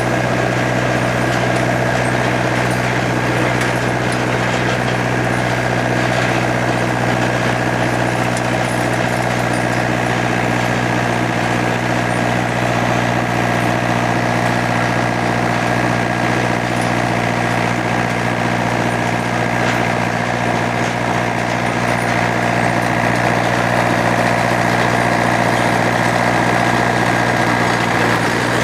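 An engine running at a constant speed, giving a steady drone with level tones that neither rise nor fall.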